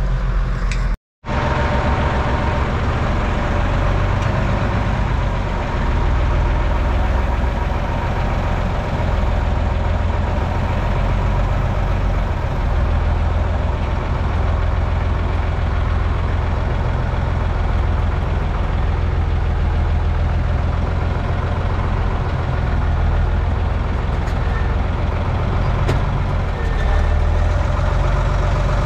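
Fendt Favorit 611 tractor's diesel engine running steadily under way, heard from inside the cab. A brief cut to silence about a second in.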